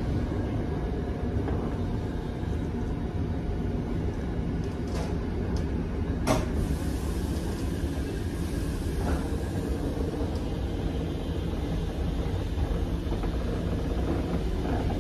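Train carriage running along the track, heard from inside the cabin: a steady low rumble with faint steady tones over it, and a sharp click about six seconds in.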